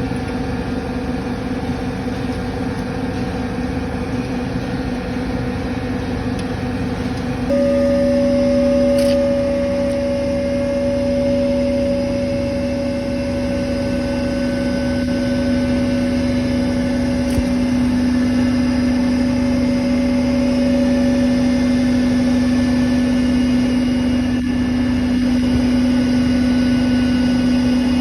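Bitzer refrigeration compressor running with a steady hum. About a quarter of the way in it gets louder and its hum moves slightly higher in pitch, then holds steady.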